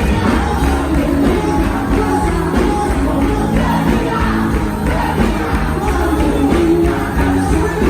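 Loud music with singing voices over a steady beat, the show music of a quadrilha junina performance.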